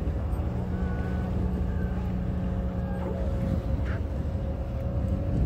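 Boat engine running steadily, a low drone with a steady hum held above it.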